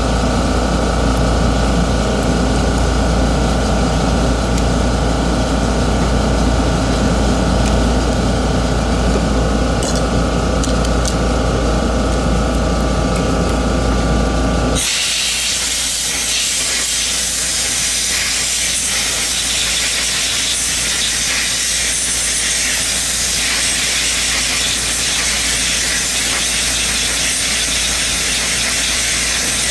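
Steady machine hum with a few held tones. About halfway through it cuts off abruptly and gives way to a steady hiss.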